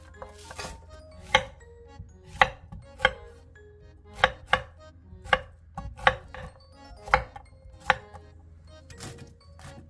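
Kitchen knife chopping on a cutting board: about ten sharp strokes at an uneven pace.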